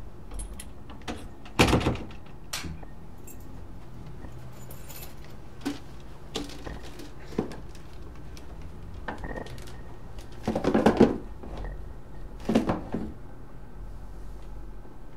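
Short handling sounds at a front door: a sharp clatter about two seconds in, then a wrapped gift box shaken twice, a short rattle each time, with small clicks and knocks between.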